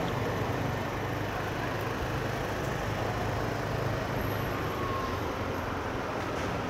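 Steady low rumble of a moving motor vehicle's engine and road noise, even throughout with no sharp events.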